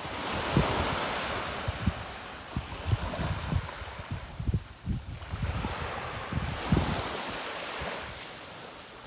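Ocean surf washing onto a beach, swelling twice as waves come in, with wind buffeting the microphone in low thumps.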